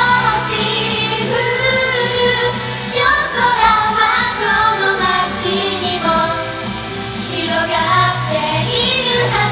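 Japanese idol girl group singing a J-pop song live, female voices over pop backing music.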